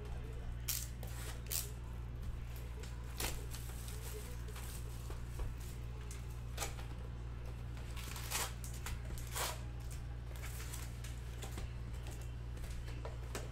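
Baseball cards and pack wrappers being handled: irregular short snaps and swishes of cards, about a dozen scattered through the stretch, over a steady low hum.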